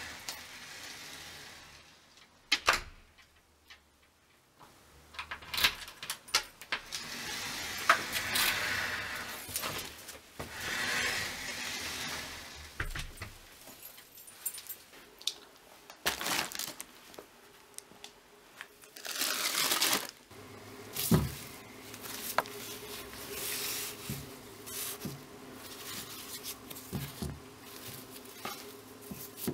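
Handling noises at a front door: sharp clicks and knocks of the door and keys, and stretches of rustling from a shopping bag being carried and set down. A faint steady hum comes in about halfway through.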